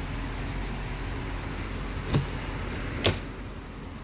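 Car driver's door being opened: two short sharp clicks about a second apart as the handle is pulled and the latch releases, over a steady low hum.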